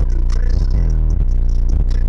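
Bass-heavy music with a steady beat and percussive hits.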